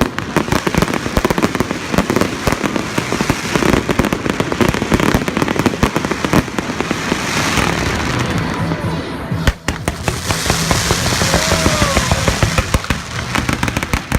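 Aerial fireworks going off in rapid crackling and popping volleys, with a single sharp bang about nine and a half seconds in, over background music.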